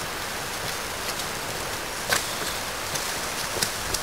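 Steady rain falling, with a few sharp taps scattered through, as of drops striking close by.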